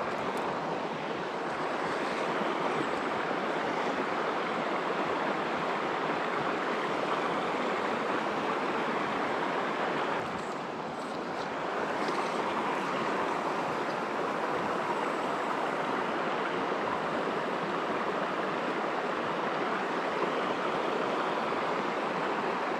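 River water rushing steadily past over rocks: an even wash of flowing-water noise that dips slightly about ten seconds in.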